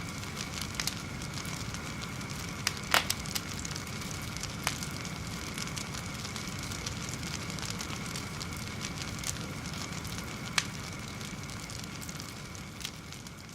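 A fire burning with a steady hiss and low rumble, broken by scattered sharp crackles and pops. The loudest cluster of pops comes about three seconds in, and single pops follow now and then.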